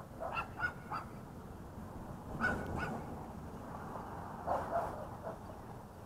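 A dog barking faintly in short bursts: three quick barks in the first second, then a pair and a few more later on.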